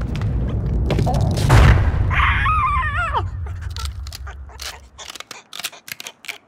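Cartoon sound effects: a low rumble swells to a heavy thud about a second and a half in. Then the red cartoon bird gives a short wavering squawk that slides down in pitch, followed by a run of quick, light clicks.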